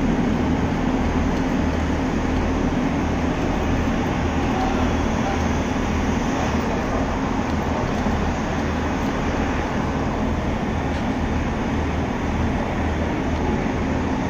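Diesel multiple-unit trains standing at the platform with their engines idling: a steady low rumble.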